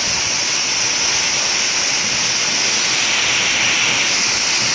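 Waterfall pouring steadily, a loud even rush of falling water.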